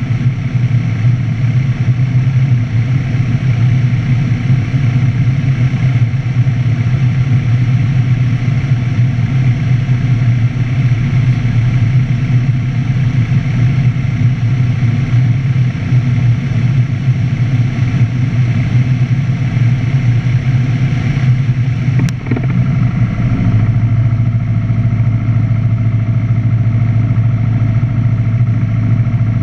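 Steady drone of a light aircraft's engine and propeller heard inside the cockpit on a night landing approach. A single sharp click comes about two-thirds through, and soon after the engine note shifts slightly and stays steady again.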